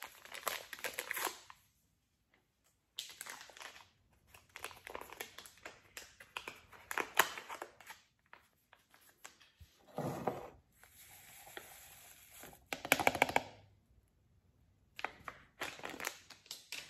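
Hot chocolate mix packet crinkling and tearing as it is worked open, then rustling as the powder is shaken out of it into a mug. The sound comes in stop-start handfuls with brief pauses, loudest around the middle and two-thirds of the way through.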